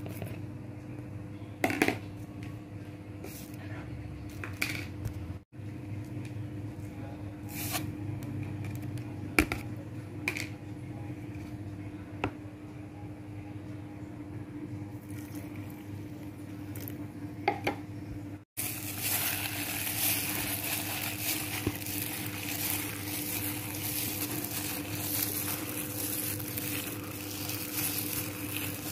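Dry ingredients tipped into a plastic bowl of glutinous rice flour, with a few sharp knocks over a steady low hum. About two-thirds of the way in, the sound switches to a hand rubbing and mixing the dry flour with mashed potato: a continuous rustling scrape.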